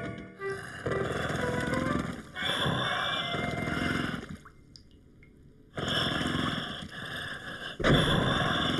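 Cartoon sound effect of breathing through a snorkel in bathwater: long, noisy, gurgling breaths, each lasting about one and a half to two seconds, with a pause of about a second midway.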